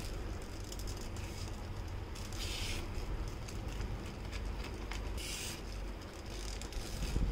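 Silicone spatula stirring and scraping a thick, simmering milk and cornflour mixture in a nonstick pan, with soft rubbing strokes, small clicks, and two brief louder scrapes about two and a half and five seconds in. A low thump comes at the very end.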